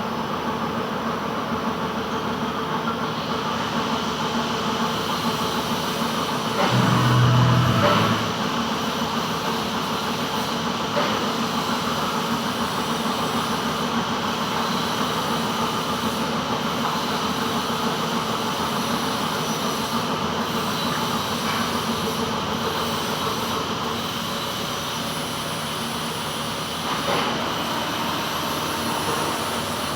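Metal lathe running steadily while turning a gland, a constant machine noise with faint steady tones. About seven seconds in, a louder low rumble swells for a second or so; there is a brief sharper sound near the end.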